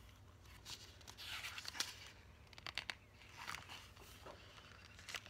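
Faint rustling and soft clicks of a picture book's paper pages being handled and a page turned, in several short bursts.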